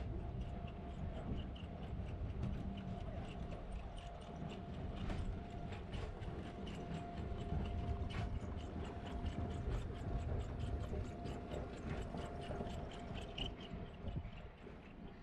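City street background: a steady low rumble with a run of quick sharp clicks or taps, a few a second, and a faint steady hum.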